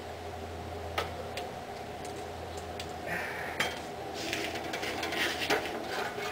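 Metal clinks and rattles as a steering shaft is set and clamped in a chop saw's vise, with a sharp click about a second in and more clattering near the end, over a steady low hum.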